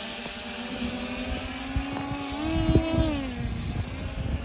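Quadcopter drone flying overhead, its propellers giving a steady buzzing hum that rises in pitch a little past halfway and drops back about a second later. Wind rumbles on the microphone underneath.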